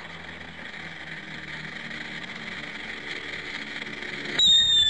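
Steady background noise, then about four and a half seconds in a whistling firework goes off with a sudden loud start, its shrill whistle sliding slowly down in pitch.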